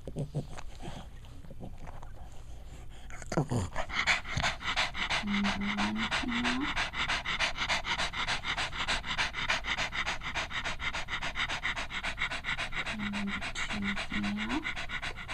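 Nursing Cavalier King Charles spaniel mother panting rapidly and evenly, several breaths a second, growing louder about three seconds in. This is normal post-whelping panting from fatigue and the contractions of milk letdown one day after giving birth.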